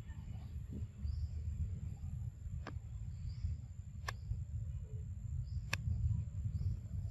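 Steady low rumble on the microphone, with three sharp clicks spaced about a second and a half apart and faint high chirps repeating about once a second.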